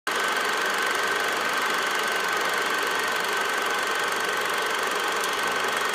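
Steady mechanical whirring with a constant high whine, starting abruptly and running evenly.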